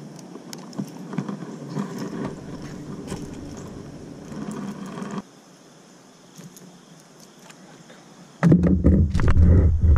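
Small clicks and rustling of metal fishing pliers and hands working a hook free from a bass's lip at the side of a canoe. Midway the sound drops suddenly to a faint hiss, and near the end there is a burst of loud low thumping and rumbling.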